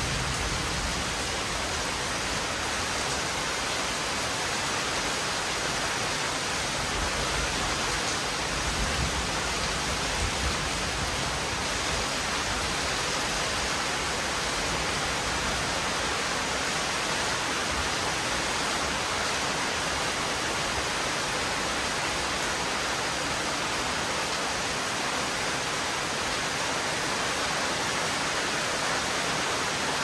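Heavy rain falling steadily as a dense, even hiss. A low rumble underneath is stronger in the first ten seconds or so, then fades.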